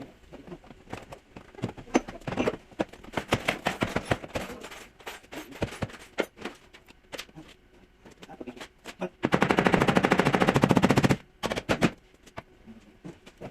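Scattered knocks and clicks of work on a car body, then a pneumatic tool rattling rapidly and evenly for about two seconds, the loudest sound here.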